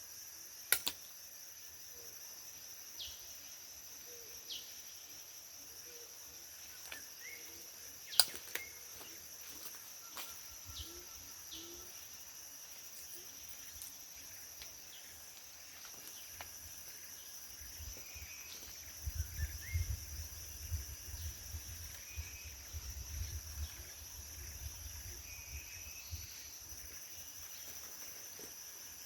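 Forest insects droning steadily at a high pitch, with scattered short chirps, two sharp clicks, and a stretch of low rustling and knocking close to the microphone in the second half.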